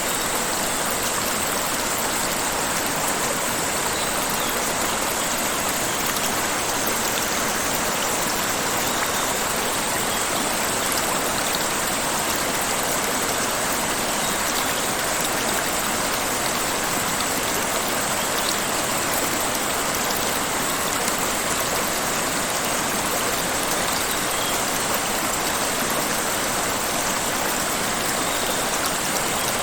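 Steady rushing of falling water from a waterfall, an even unbroken roar.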